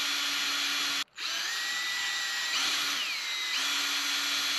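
Electric drill spinning a valve lapping stick, lapping a valve against its seat in an aluminium Chevy 2.2 Ecotec cylinder head with lapping compound to break the glaze. The drill whines steadily, cuts out briefly about a second in, then starts again, its pitch shifting for a moment around three seconds in.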